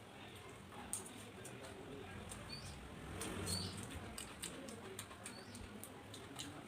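A person eating rice and fried okra and potato by hand: quiet chewing with many sharp mouth clicks and smacks, and a few faint short high chirps.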